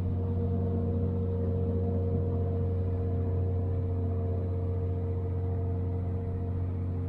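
Fishing boat's engine running steadily as it motors along, a constant-pitched drone that does not change.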